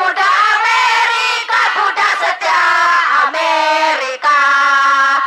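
A crowd of protesters chanting together in loud short phrases, ending on a long held note, led by a woman on a microphone.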